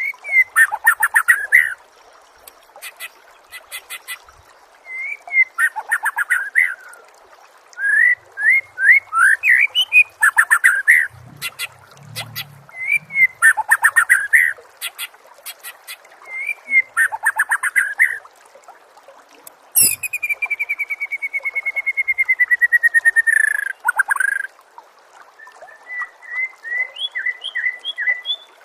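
Songbird song from a bird-training recording: loud, varied phrases of quick trills and sweeping notes with sharp clicking calls between them. About twenty seconds in comes one long, slowly falling whistle, followed by a short run of rising chirps.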